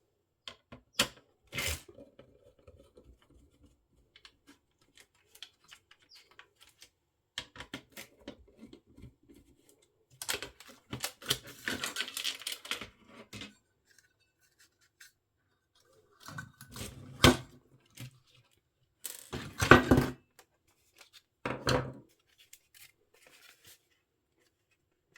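Handling and disassembly noises from a cassette recorder's plastic and metal parts: scattered sharp clicks and knocks, with a longer scraping rub about ten seconds in.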